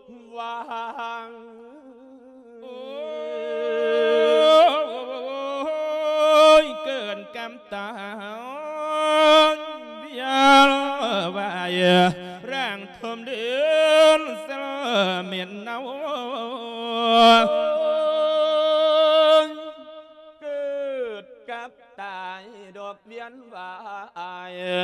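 A Thai Buddhist monk singing a lae, the melodic Isan sermon chant, into a microphone: a solo male voice in long, ornamented held notes that waver, sung in phrases with short breaths between.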